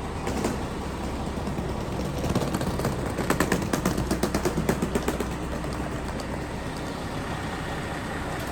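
Steady background hum and noise, with a fast run of rattling clicks in the middle lasting about three seconds.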